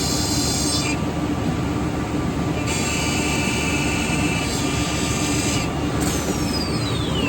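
Six-sided CNC panel drilling and routing machine running, with a steady machine hum under it. A high-pitched whine cuts in and out twice, then a whine falls steadily in pitch near the end, as a spindle spins down.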